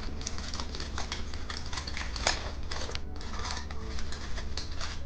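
Crinkly plastic candy packaging being handled and opened: a dense run of irregular crackles and snaps.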